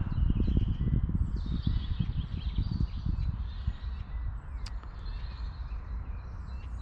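Outdoor ambience: birds chirping faintly over an uneven low rumble that is stronger in the first half.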